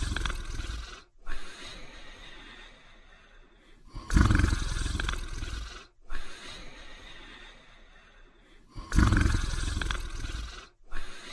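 Dog snoring in a slow, even cycle: three loud snores with a deep rumble, about five seconds apart. Each is followed by a softer, longer breath.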